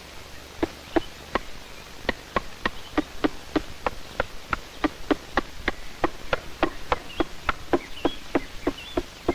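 Black woodpecker hacking out its nest hole in a tree trunk: a steady run of sharp wooden knocks, about three a second, starting about half a second in.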